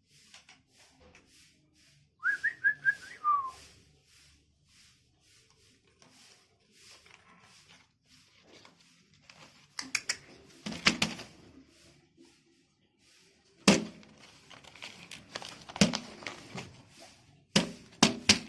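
A quick run of short high whistled notes, the last one sliding down in pitch. Later come scattered sharp knocks and taps, the loudest about three-quarters of the way through.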